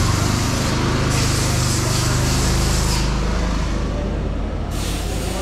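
Several rental go-kart engines idling together in the pit lane, a steady low hum, with a few bursts of hissing that start and stop abruptly on top.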